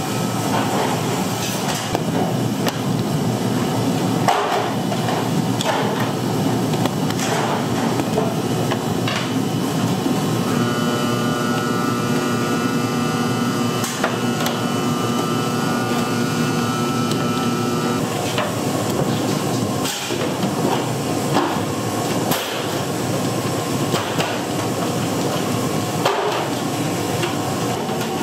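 Bakery kitchen work: repeated knocks and clatter of tools and trays over steady machine noise. A steady machine tone comes in about ten seconds in and stops about eight seconds later.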